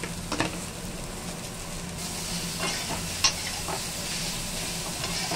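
Sliced snake gourd sizzling steadily in a hot kadai, cooking in its own juice drawn out by salt with no water added. A metal spoon stirs it and clicks against the pan a few times, loudest about three seconds in.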